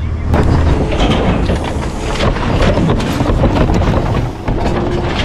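Garbage truck noise: a loud, rough rumble crowded with rattling and clattering knocks.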